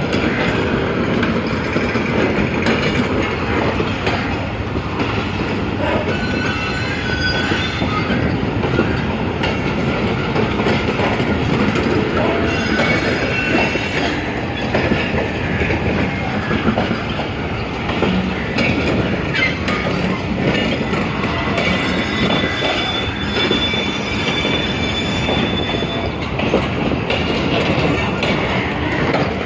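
Millat Express passenger coaches of Pakistan Railways rolling past the platform, their steel wheels clattering steadily over the rails, with thin high wheel squeals coming and going.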